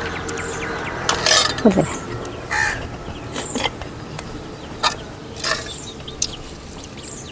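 Crows cawing several times in short harsh calls, with small birds chirping high and faint in the background.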